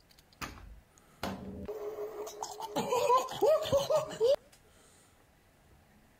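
A man's voice laughing and shrieking loudly over a rushing noise, starting about a second in and cutting off abruptly about three seconds later.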